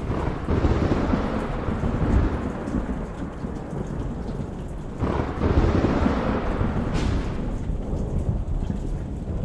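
Steady rain with two rolls of thunder. One starts about half a second in and the other about five seconds in; each rumbles low and fades over a few seconds.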